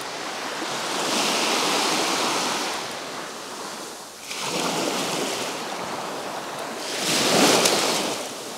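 Small waves breaking and washing up a sandy beach: three swells of surf a few seconds apart, each rising and fading away.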